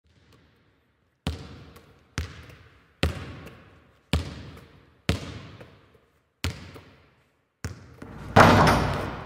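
A basketball bouncing seven times on a hard floor, roughly once a second, each bounce trailing off in echo. Near the end comes a louder, longer noisy crash.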